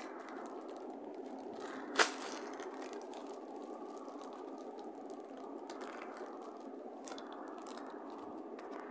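Faint crinkles and crackles of clear plastic packaging being handled over a steady hiss, with one sharp click about two seconds in.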